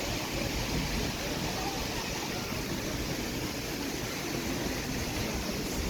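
Waterfall rushing, a steady even noise of falling water.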